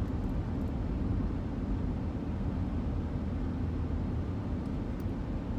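Steady low road and engine rumble inside the cabin of a moving SUV.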